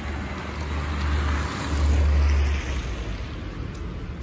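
A car passing by on the street, its tyre and road noise swelling to a peak about two seconds in and fading away, over a low wind rumble on the microphone.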